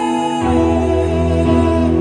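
Live song: a male singer with electronic keyboard accompaniment. About half a second in, a held note gives way to a new chord with a deep bass.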